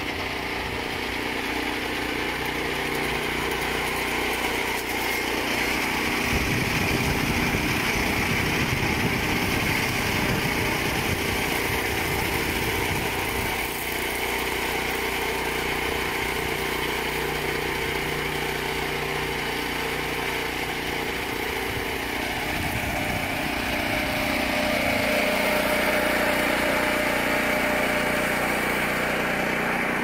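Junior Peterson swingblade sawmill running steadily, its engine driving a planer blade across the face of a wet hardwood slab. Near the end, one of its pitches slides down.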